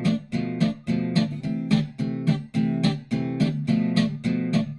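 Background music: an acoustic guitar strummed in a steady, even rhythm, about three strums a second.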